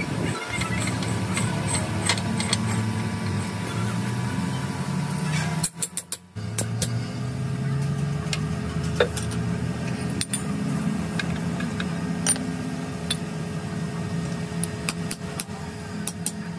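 A motor running steadily with a low drone, with scattered sharp metal clicks, and a brief break about six seconds in.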